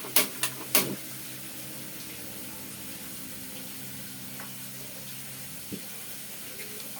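Kitchen sounds: three sharp clicks or clinks in the first second, then a steady hiss with a low hum underneath.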